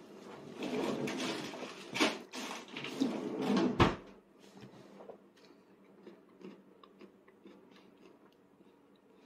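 Indistinct household rustling with two sharp knocks in the first four seconds, then a quiet room with only faint small clicks.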